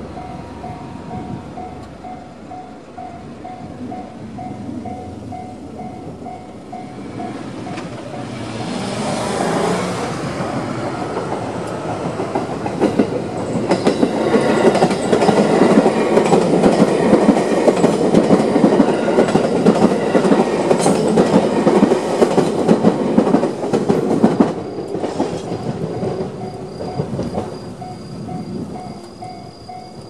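Japanese railway level-crossing alarm ringing its standard JR electronic ding in a steady repeated pattern, then a JR 211-series electric train approaches and passes through the crossing with a rhythmic clickety-clack of wheels over rail joints, loudest in the middle. The train noise drops off sharply about 24 seconds in, and the crossing alarm is heard again near the end.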